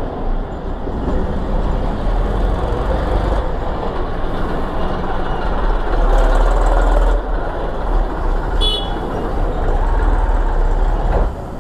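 Steady, loud road traffic noise with a deep rumble, and a short high-pitched vehicle horn toot about eight and a half seconds in.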